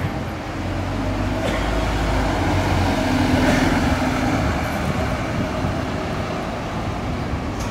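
Diesel engine of a city bus pulling away from a stop and accelerating past. The engine note swells to its loudest about three seconds in, then fades steadily as the bus drives off.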